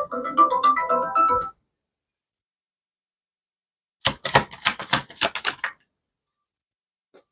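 Soft background music with held keyboard-like notes that cuts off abruptly about a second and a half in. After a gap, a rapid run of sharp clicks and taps lasts about a second and a half.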